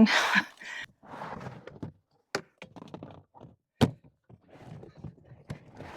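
Items being rummaged through and moved around in storage: irregular rustling and scraping, with two sharp knocks about two and a half and four seconds in.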